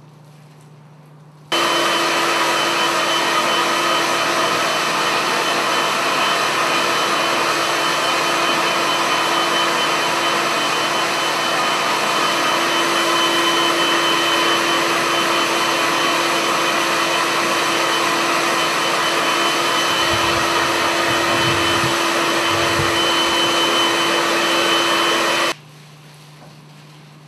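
Hand-held hair dryer blowing air at steady speed: a loud rush of air with a steady whine over it, starting suddenly about a second and a half in and stopping suddenly near the end. A few low rumbles come in about three-quarters of the way through.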